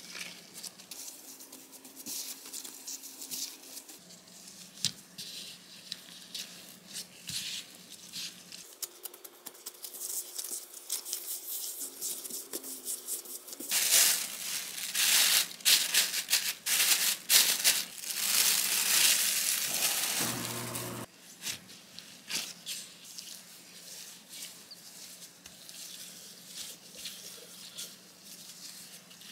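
Gloved hands pressing, patting and shaping soft bread dough on a floured wooden board, with light pats and rustles of the gloves. About halfway through, a plastic sheet crinkles loudly for several seconds as it is laid over the dough balls. A faint low hum runs underneath.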